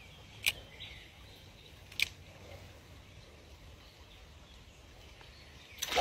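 Shallow stream running quietly while a small fish is reeled in on a spinning rod, with two sharp clicks about a second and a half apart. Near the end comes a louder splash as the fish is brought up at the angler's feet.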